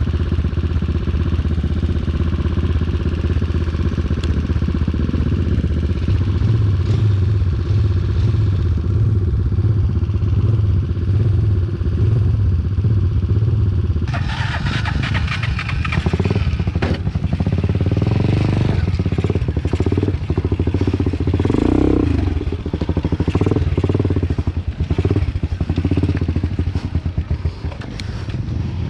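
Motorcycle engine running steadily under way on a trail. From about halfway through it turns rougher, with clatter and short knocks over the engine note.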